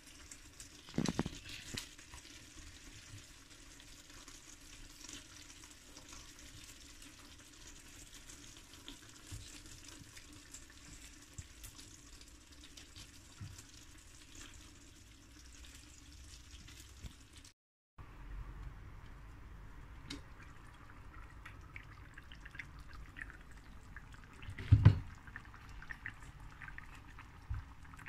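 Tomato sauce simmering gently in a clay tajine, a soft steady bubbling, with scattered light knocks as raw minced-meat balls are set into the pot. One louder knock about 25 seconds in.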